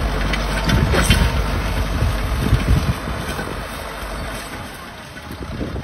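Ford 6600 tractor's three-cylinder diesel engine running under load as it pulls a disc harrow through dry soil. The sound fades steadily from about halfway through as the tractor moves away.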